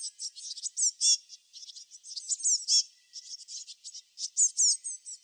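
Small birds chirping and twittering: a rapid, continuous run of high, thin notes, many of them quick downward sweeps.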